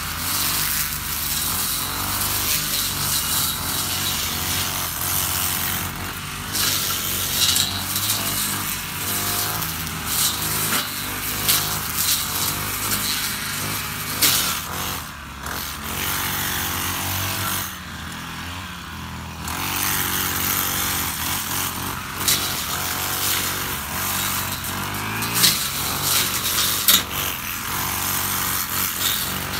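Honda UMK450T brush cutter, its GX50 four-stroke engine running at high revs as the two-tooth blade cuts tall grass, with sharp ticks as it strikes stems. The revs ease off briefly about two-thirds of the way through, then rise again.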